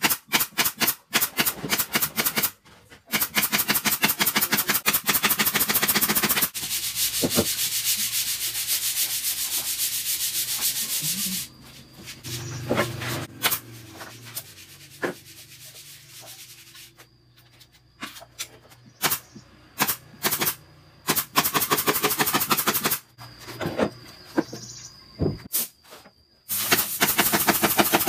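Pneumatic nail gun firing into plywood cabinet panels in rapid strings of sharp shots, near the start and again in the second half. A steady hiss fills several seconds in between.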